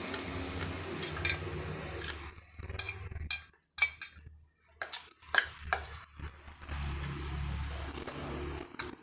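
A spoon and fork clinking and scraping on a plate of fried noodles, in a run of sharp clicks in the middle. A low steady hum fades out early on and comes back near the end.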